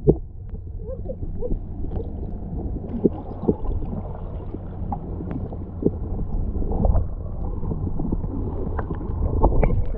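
Muffled water noise heard through a submerged camera: a steady low sloshing rumble with scattered small clicks and bubbling as the seal swims past.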